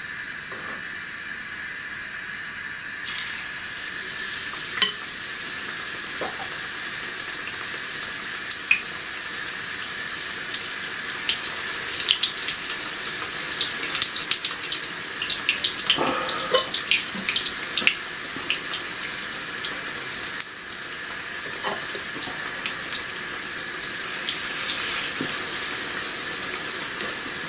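Batter-coated aubergine slices deep-frying in hot oil in an iron karahi: a steady sizzle with sharp crackles and spits, which start about three seconds in as the first pieces go into the oil and grow busier towards the middle.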